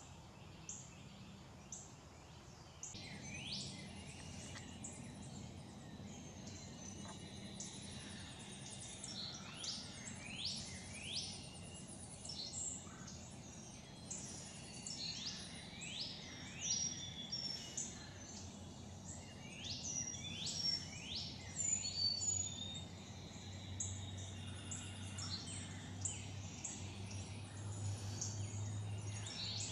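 Several songbirds singing and calling, mostly quick high notes that sweep steeply downward, repeated over and over above a steady background hiss. A low steady hum comes in about two-thirds of the way through.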